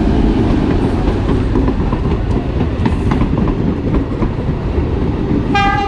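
Train hauled by a diesel locomotive rolling into the station: a steady low engine rumble with the wagons running over the rails and scattered knocks, and a short high-pitched tone near the end.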